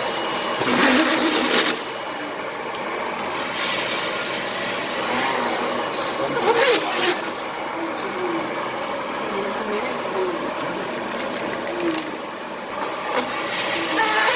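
Horizontal degassing band sealer running: a steady machine hum and whir, with brief louder hissing bursts about a second in, around four and seven seconds in, and near the end.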